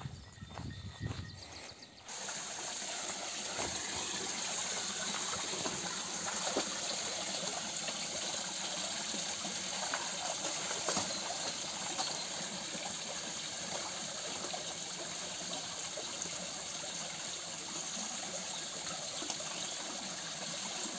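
Water gushing steadily into a livestock watering pool, starting abruptly about two seconds in.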